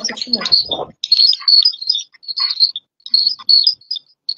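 High, twittering chirps and whistles come through the video-call audio, short and irregularly spaced, after a brief muffled voice in the first second. The participants take it for interference on the connection.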